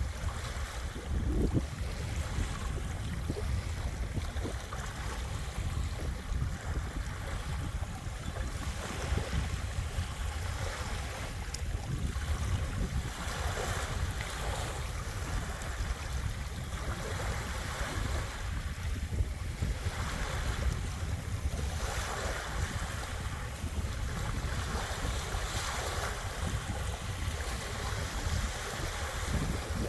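Waves washing onto a beach at ebb tide, swelling and easing every few seconds, with wind rumbling on the microphone throughout.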